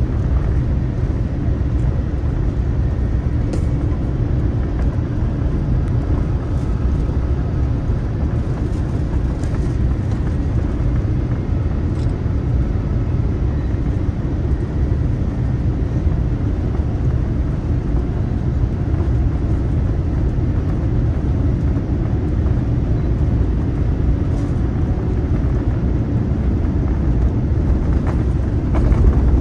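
Steady low rumble of a Boeing 787-9 airliner heard from inside the cabin: engine and airflow noise, even throughout and a little louder near the end.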